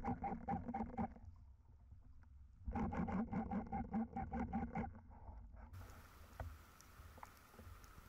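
Motorboat engine heard underwater: a pulsing hum with a fast beat of about six pulses a second. It drops out for about a second and a half and returns, then gives way to a faint even hiss with a few small clicks.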